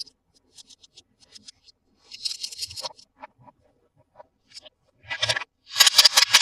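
Hands handling toy packaging and plastic toy parts during an unboxing: scattered light clicks and ticks, a short scraping rustle about two seconds in, and louder repeated scraping near the end.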